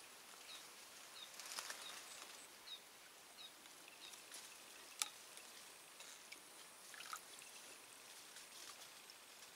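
Near-quiet outdoor ambience by still water: faint hiss, a few faint high chirps in the first half, soft rustles, and one sharp click about five seconds in.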